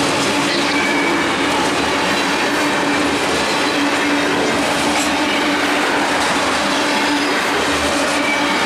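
Loaded covered hopper cars of a grain train rolling past close by, their steel wheels on the rails making a loud, steady rolling noise with a steady humming tone under it.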